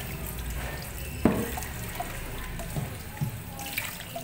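Kitchen tap running onto a wooden chopping board in a stainless steel sink as it is rubbed clean by hand. There is a sharp knock about a second in and a couple of lighter knocks later.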